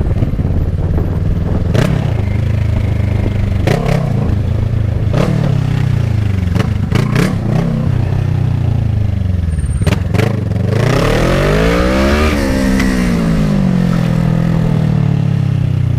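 Kawasaki ER-6n's 650cc parallel-twin engine running under way, its pitch rising and falling through the gears, with a hard acceleration about eleven seconds in that peaks and drops back as the throttle is eased. A few sharp clicks or knocks sound along the way.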